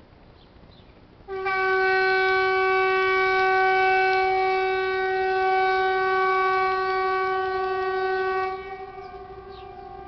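Swedish civil-defence outdoor warning siren (Hesa Fredrik) sounding one steady tone. It starts suddenly about a second in, holds for about seven seconds, then drops to a fainter lingering tone.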